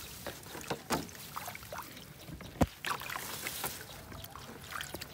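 Water splashing and dripping as hands work a fish trap in shallow water, with irregular sharp splashes and knocks, the loudest about two and a half seconds in.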